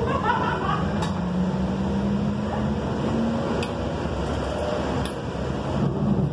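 Inside a Valley Metro light rail car in motion: a steady rumble of the train running on street track, with a low hum throughout and a few faint clicks.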